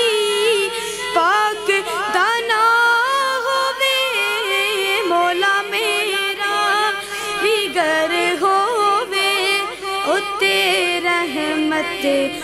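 A boy's voice singing a Punjabi devotional naat unaccompanied into a microphone. It is one continuous melodic line with bending, ornamented phrases and vibrato.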